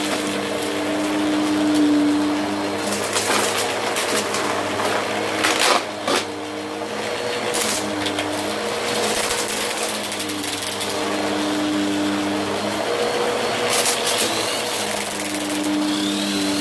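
Bissell CleanView upright vacuum running on carpet, its motor humming steadily as it is pushed back and forth, picking up confetti and small debris with light crunching and a few sharp clicks, the loudest about six seconds in.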